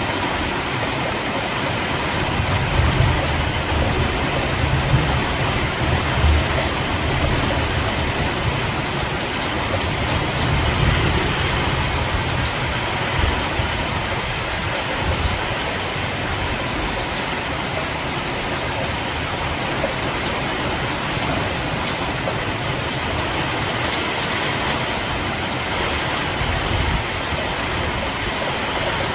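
Steady rain falling, an even hiss, with an uneven low rumble underneath through roughly the first half and briefly again near the end.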